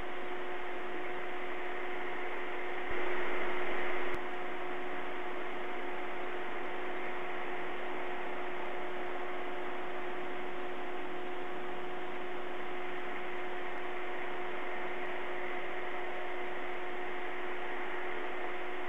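Steady electronic hiss with a constant low two-note hum from a live-stream webcam's audio feed. About three seconds in, a click starts about a second of louder hiss, which ends with another click.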